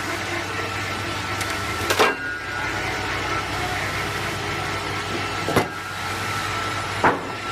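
Sawmill machinery running steadily, with a low hum and a steady high tone, and three sharp knocks, like wood or machine parts striking, about two, five and a half and seven seconds in.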